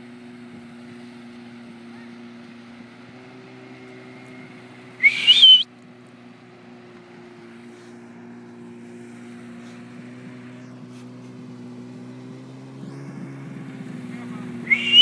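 Jet ski engines running steadily out on the water, the hum swelling a little as one comes closer near the end. Two loud, short, rising whistles cut across it, one about five seconds in and one at the very end.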